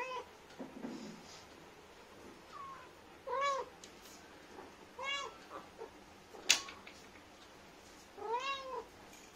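Mother cat meowing at her kitten: about four short meows a second or two apart, each rising then falling in pitch. A single sharp click about six and a half seconds in.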